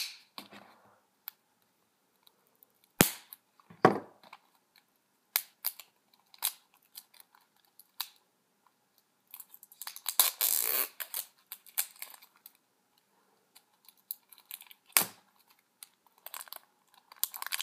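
Scattered sharp clicks and taps from a folding knife and a cellophane-wrapped playing-card box being handled on a table, with about a second and a half of cellophane crinkling around ten seconds in as the wrap is cut and peeled.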